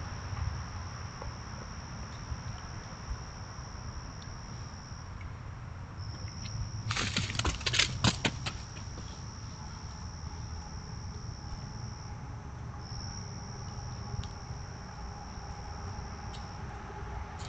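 Night insects trill steadily and high-pitched, with a few short breaks. About seven seconds in comes the loudest sound, a quick cluster of sharp rustles and thumps lasting a second or so: a whitetail doe's hooves in the leaf litter as she bolts with her tail raised in alarm.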